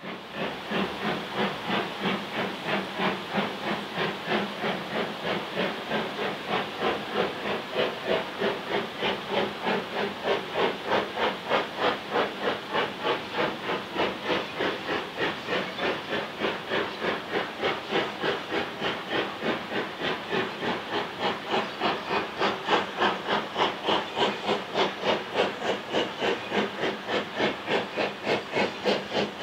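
LMS Fowler 4F 0-6-0 steam locomotive hauling a passenger train, its exhaust chuffing in a steady rapid rhythm of about three beats a second. It grows louder in the last few seconds as the engine approaches.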